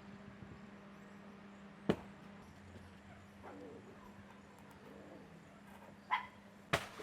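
Two sharp knocks, one about two seconds in and one near the end, with a short dog bark just before the second knock, over a steady low hum.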